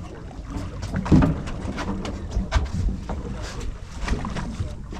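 Fishing boat's engine running steadily at low revs, with water noise and scattered knocks and clicks on board.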